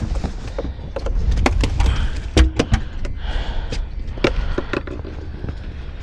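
Scattered knocks and clicks on a fiberglass boat deck and cooler as a freshly caught red drum is handled and laid on a measuring board, over a steady low rumble.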